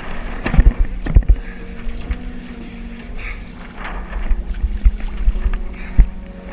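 Wind buffeting the microphone and water rushing past the hulls of a small sailing trimaran under way, broken by several dull low thumps.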